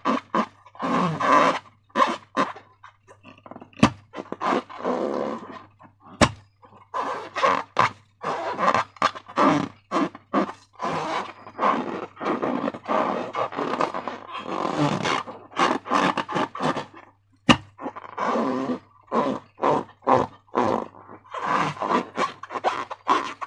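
Thick slime squelching and squishing in a quick, irregular run of wet sticky bursts, with a few sharp clicks.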